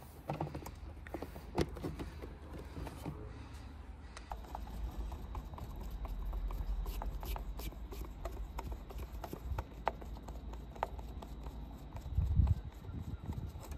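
Irregular small clicks and ticks of the heat pump's sheet-metal covers being pressed back on and a Torx screwdriver turning the casing screws home, over a low rumble.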